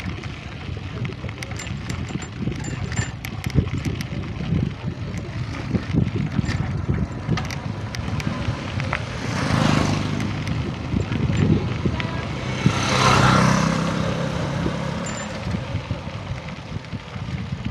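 Road vehicle noise: a steady low rumble with frequent knocks and rattles, and two louder swells about ten and thirteen seconds in, as vehicles pass close by.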